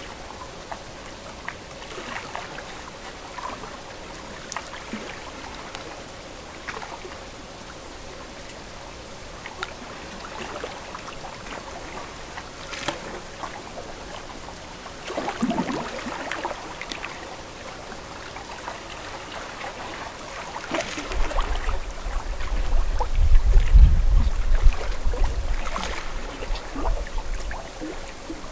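Lake water lapping and trickling at the shore, with scattered small splashes. A deep rumble swells up about three quarters of the way through and fades again near the end.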